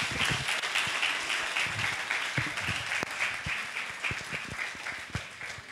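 Audience applauding, a dense patter of many hands clapping that slowly dies down and then cuts off suddenly.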